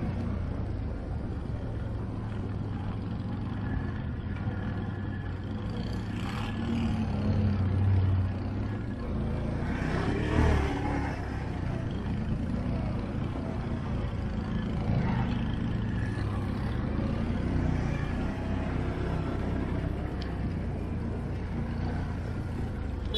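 ATV engine running steadily at low revs, with small rises in revs a few times.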